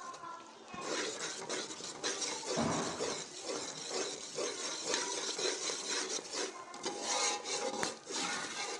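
A perforated metal spoon scraping and rubbing against a metal pan in quick, repeated strokes. It is stirring a thick paste of gram flour and sugar syrup as the mixture cooks down.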